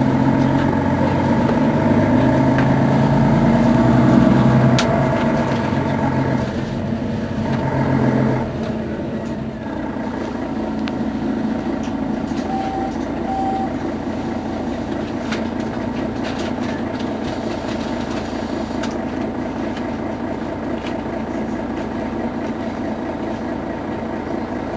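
Mercedes-Benz Citaro facelift city bus's diesel engine idling at a stop. A louder, deeper engine sound over the first eight seconds or so drops away, leaving a steady idle. Two short beeps come about halfway through.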